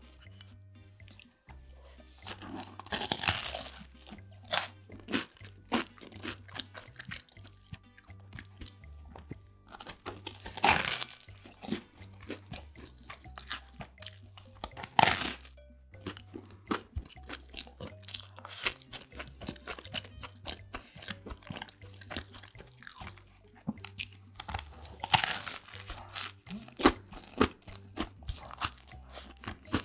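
Close-up biting and chewing of a toasted sandwich: a few loud crunches as the crisp crust breaks, with smaller crackles of chewing in between.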